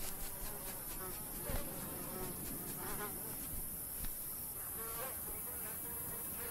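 Flies and other insects buzzing steadily, with a few louder buzzes coming and going.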